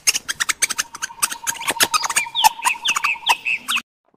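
Rapid sharp clicks and crackles mixed with short falling chirps, over a thin steady high tone; small animal sounds.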